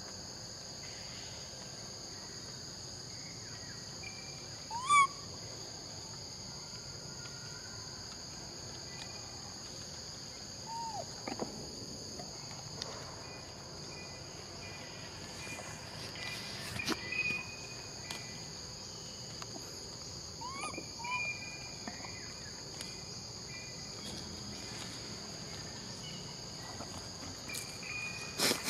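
Steady high-pitched insect chorus, with a few short rising chirps scattered through it, the loudest about five seconds in, and a couple of sharp taps near the end.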